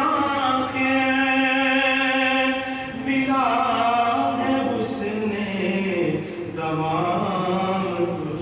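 A man singing a naat, Urdu devotional poetry in praise of the Prophet, in a chanting style with long held notes that glide slowly up and down.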